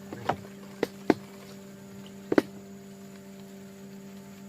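A steady low hum with a handful of sharp knocks or clicks over the first couple of seconds, the loudest a close pair about halfway through.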